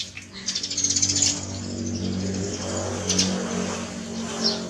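A motor vehicle engine running, loudest about a second in, then holding steady and dropping away at the end.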